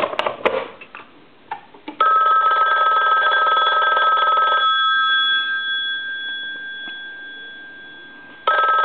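Mechanical ringer bells of an ITT rotary desk telephone answering a test ring. A few handling clicks come first. About two seconds in, a ring starts abruptly and lasts about two and a half seconds, then the gongs die away slowly. The next ring starts just before the end.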